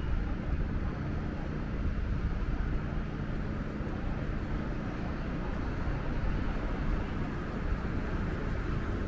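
Steady low rumble of downtown street traffic and city hum, with no single sound standing out.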